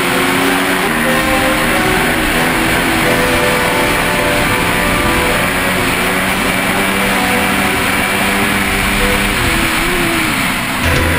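Yamaha dirt bike engine running under throttle, its pitch holding and then shifting in steps, with one brief rise and fall in revs near the end, over heavy wind noise on the helmet camera.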